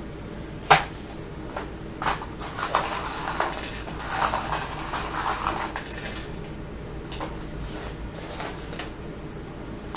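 A sharp knock about a second in, then a rattle of metal screws tipped from a small cardboard box onto a wooden workbench, with a few more screws dropping singly near the end.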